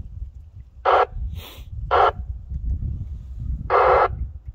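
Three short bursts of static from the Yaesu FT-2980 2-metre FM transceiver's speaker, each under half a second, a weak signal breaking the squelch, with a low rumble underneath.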